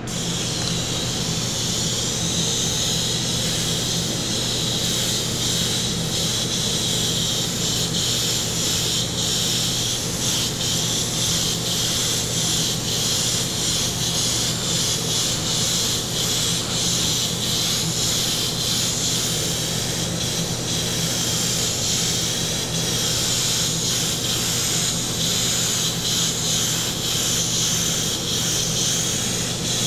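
A gravity-feed airbrush fitted with a 0.5 mm nozzle hisses steadily as it sprays solvent-based metallic flake paint, with a steady low hum underneath.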